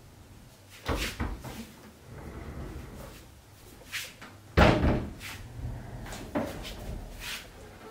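Wooden water rowing machine (Sportstech WRX1000) being folded out: its wooden frame knocks and clunks several times, with one loud thud about four and a half seconds in.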